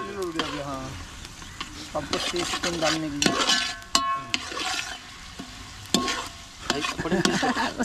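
Metal spatula stirring and scraping through tomato-and-onion masala frying in a large steel pot over a wood fire, with sizzling and irregular clinks of the spatula against the pot.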